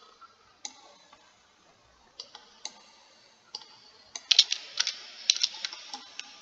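Computer mouse and keyboard clicks: single clicks a second or so apart, then a quick, louder flurry of clicks about four seconds in.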